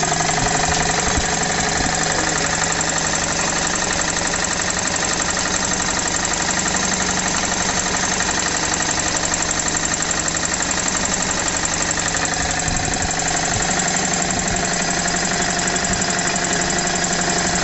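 Vintage Motivair air compressor running steadily, noisy, with a fast even pulsing. It is a twin-cylinder Frigidaire refrigeration compressor driven by a quarter-horsepower single-phase motor, and it is slowly building pressure in its tank.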